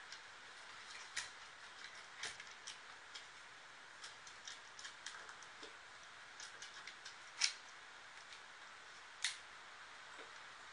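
Irregular light clicks and taps of a corgi puppy's teeth and mouth on the wire bars of a metal playpen, a few of them sharper than the rest.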